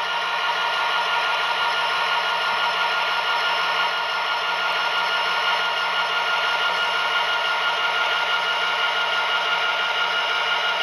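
Tsunami 2 sound decoder in an HO-scale Athearn Genesis SD60M playing the diesel prime mover sound, running steadily at low throttle through the model's small onboard speaker as the locomotive creeps along at speed step 1.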